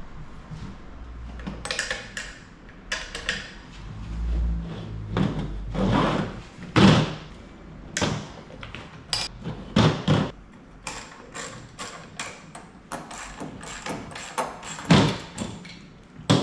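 Irregular clicks, knocks and clatter of hand work on a Zodiac FloPro pool pump as its back plate is unscrewed and pulled off the motor, with a short low rumble about four seconds in.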